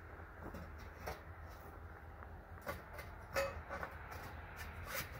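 Steel frame tubing knocking and clanking as a 2-inch VersaTube upright is handled and set into the baseplate: several short knocks, the loudest about three and a half seconds in, over a low steady rumble.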